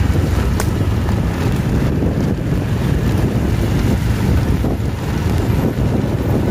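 Heavy rain and strong wind, with gusts buffeting the microphone: a steady, loud rushing noise with a deep rumble. A single sharp click about half a second in.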